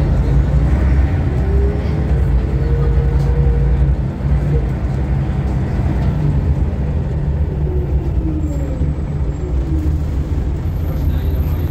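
Scania L94UB city bus heard from inside the cabin while driving: a steady low diesel engine drone, with a whine that rises in pitch over the first few seconds and falls again later, and a brief dip in loudness about four seconds in.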